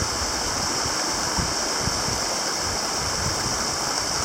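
Rushing water of a mountain stream, a steady, even noise.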